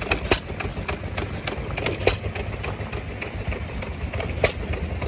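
Vintage hit-and-miss gas engine running, firing with a sharp crack about every two seconds over a steady low rumble of flywheels and belts.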